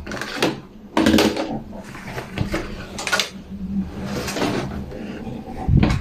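Handling noises at a twin tub washing machine: a series of short knocks and rustles, the loudest about a second in and a heavy low thump near the end, over a faint steady low hum.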